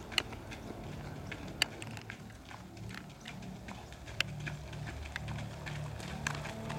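Footsteps of several runners jogging on a packed dirt path: quick, irregular footfalls with a few sharper ones standing out.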